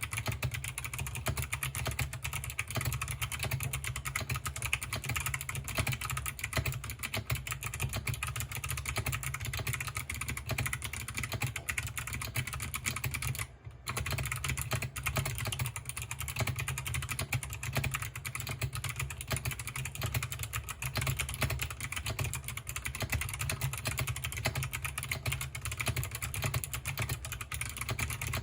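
Continuous fast typing on a 60% mechanical keyboard with clicky Kailh Box Navy switches: a dense, steady stream of sharp key clicks, with a brief pause about halfway through.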